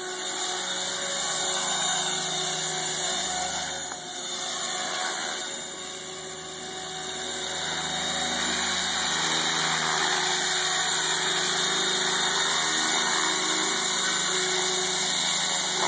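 MSH Protos 500 electric RC helicopter in flight: a steady motor whine and rotor noise whose tones shift in pitch as it manoeuvres, with the helicopter settling onto the grass near the end.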